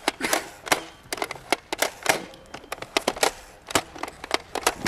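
A rapid, irregular run of sharp clicks and crackles, several a second and uneven in strength.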